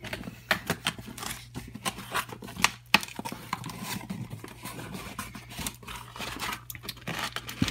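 A corrugated cardboard shipping box being pulled open by hand: cardboard flaps scraping and rubbing, with a run of sharp clicks and snaps, the loudest about two and a half to three seconds in.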